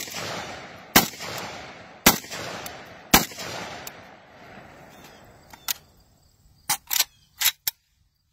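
SPETS 12 semi-automatic Saiga-pattern 12-gauge shotgun fired four times, about a second apart, with no muzzle brake fitted, using high-brass 1400 ft/s steel-shot loads. Each shot echoes away over most of a second. Several fainter sharp clicks follow near the end.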